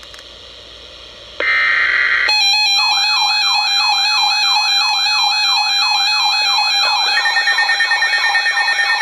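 Emergency alert tones over a radio feed: a faint hiss, then a short buzzing burst of digital header data, then a loud steady alert tone with a warbling sweep repeating about three times a second. A second, higher tone joins partway through. The tones announce an incoming severe thunderstorm warning.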